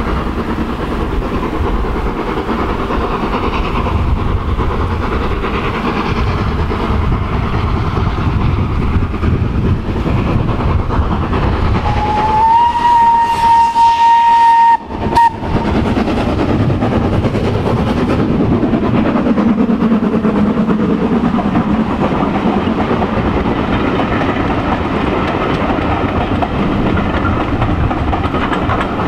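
Steam locomotive hauling coaches past, its exhaust and wheels running with a steady rumble. About halfway through it gives one steam whistle blast that rises briefly and is then held for about three seconds. The coaches then clatter by over the rail joints.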